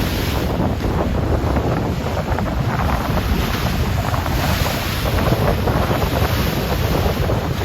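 Rough, choppy Atlantic Ocean waves crossing and churning in a continuous rush that swells now and then, with wind buffeting the microphone.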